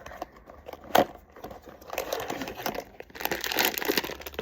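Crinkly blind-box packaging being handled and torn open: one sharp click about a second in, then dense crinkling from about two seconds in, heaviest near the end.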